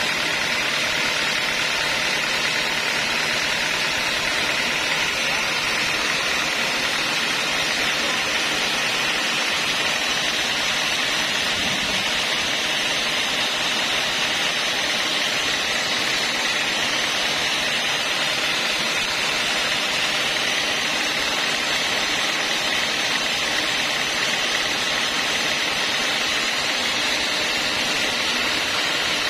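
Homemade band sawmill running steadily without cutting, a constant, even machine noise with no change in pitch or level.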